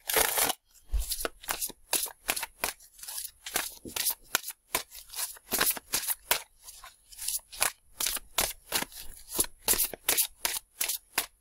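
A tarot deck shuffled in the hands, the cards slapping and flicking together in short strokes about three times a second.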